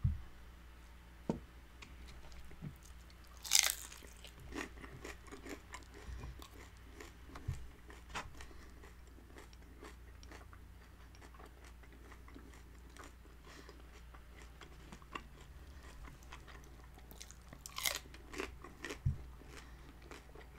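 Crispy fried birria taco being bitten and chewed close to the microphone: two loud, crisp crunches, about three and a half seconds in and again near the end, with quieter chewing between them.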